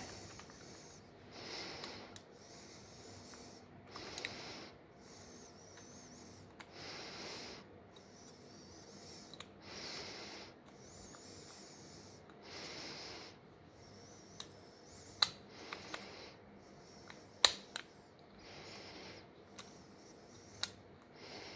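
A person breathing close to the microphone, with soft noisy breaths every two to three seconds. In the second half come a few short sharp clicks.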